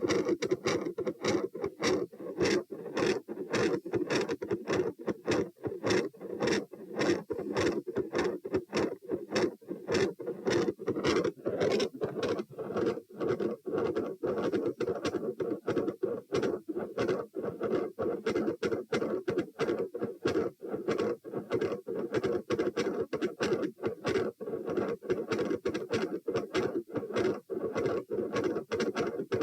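Heart sounds heard through a stethoscope at the pulmonic area: a steady, regular beat with a constant low rushing noise beneath it.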